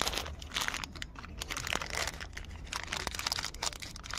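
Thin white packing wrap crinkling and rustling irregularly as hands unwrap and handle it.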